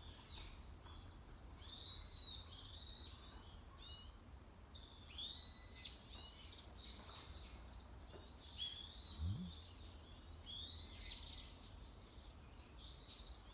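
A bird calling several times: short, high, arching calls spaced a few seconds apart.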